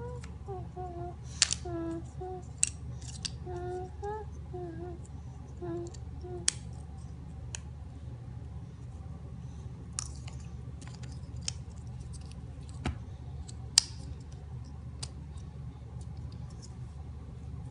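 Scattered sharp clicks and taps of cardboard jigsaw puzzle pieces being handled and pressed into place, over a steady low hum. A child's voice makes short pitched sounds in the first few seconds.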